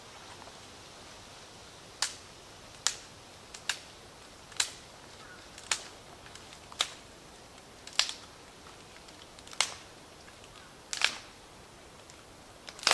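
Dry twigs being snapped by hand, about ten sharp cracks roughly a second apart.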